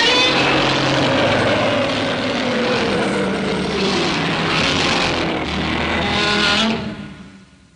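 Godzilla's roar from the 1984 film, a loud screeching cry that starts suddenly, slides downward in pitch and fades out near the end.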